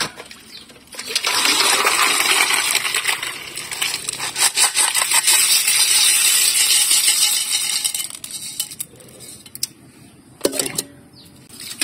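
Siput sedut freshwater snail shells poured by the hundred from a pot into a stainless-steel colander: a loud, dense clatter of hard shell against shell and metal. It starts about a second in, lasts about seven seconds and dies away.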